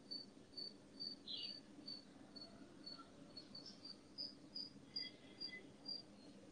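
Faint, steady chirping of a cricket: short high chirps at one pitch, about two a second.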